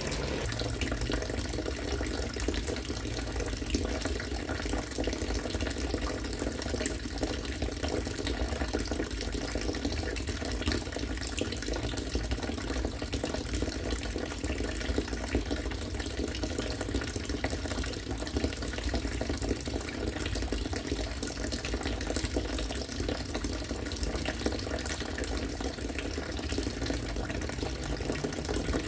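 Collected rainwater from a rainwater-harvesting setup falling in a steady stream and splashing, with a constant rush.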